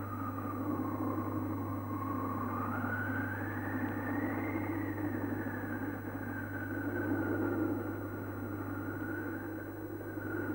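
Howling wind sound effect: a single whistling tone that slowly rises, peaks about four seconds in, then sinks and wavers, over a steady low electrical hum.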